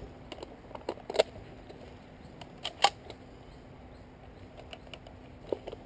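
A few sharp clicks and snaps at uneven intervals, the loudest a close pair about three seconds in, over a quiet outdoor background.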